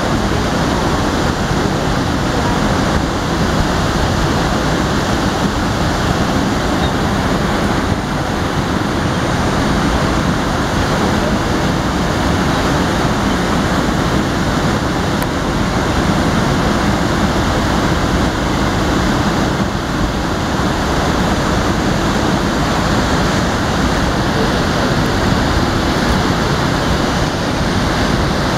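Steady rushing of a fast-flowing river, an even roar of water with no pauses.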